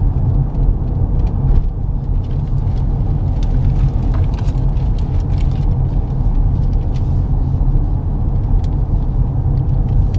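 Pickup truck driving, heard from inside the cab: a steady low rumble of engine and road noise.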